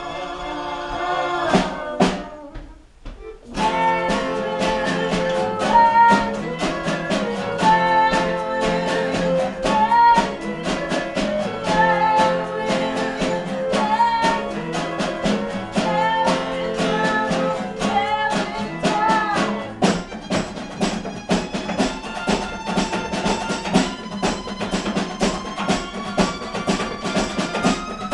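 A live acoustic folk band playing: strummed acoustic guitars with violin, light percussion and singing. The music drops out briefly about two seconds in, then comes back with a steady strummed beat, and near the end a long note slowly climbs in pitch.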